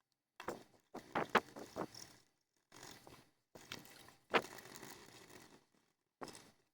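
Scraping and handling noises with sharp clicks, in about six short bursts separated by silence.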